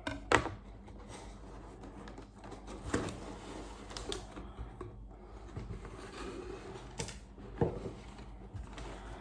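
A plastic model kit box being opened and handled: light rustling of cardboard and packaging, with a few scattered sharp taps and knocks.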